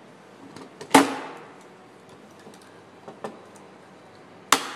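Hand pop-rivet tool setting blind rivets: two sharp snaps about three and a half seconds apart as the rivet mandrels break off, the first with a short ring, and a few lighter clicks of the tool between.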